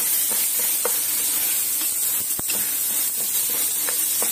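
Rice grains sizzling in hot ghee in a pot while being stirred with a wooden spoon, a steady high hiss with light scraping ticks, as the rice is toasted. One sharp click about two and a half seconds in.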